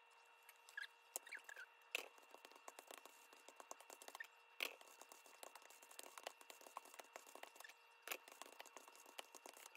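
Metal chopsticks clicking and scraping against a paper instant-noodle cup as sauced noodles are stirred: many quick light clicks with a few sharper knocks. A faint steady hum sits underneath.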